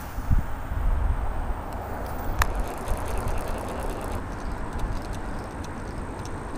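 Wind buffeting the camera's microphone in a steady low rumble, with a single sharp click about two and a half seconds in.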